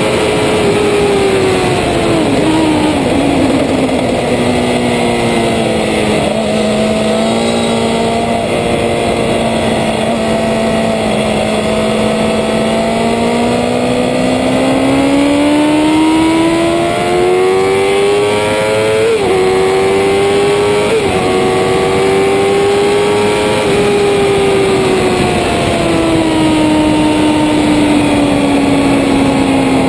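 Sport motorcycle's engine at racing speed, heard close from a camera mounted low on the bike. The pitch falls as the rider slows into a corner, holds low and steady through the long bend, then climbs hard with two quick gear changes a little past halfway, and drops off again near the end as the bike slows for the next turn.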